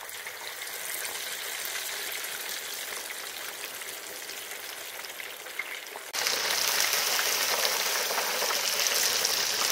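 Chicken drumsticks deep-frying in hot oil, a steady sizzle with fine crackling. About six seconds in it suddenly jumps louder and brighter.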